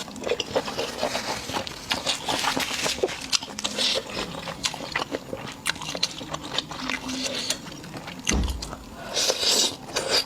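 Close-miked eating: crisp bites and chewing, with many small crunchy crackles, and a single low thump about eight seconds in.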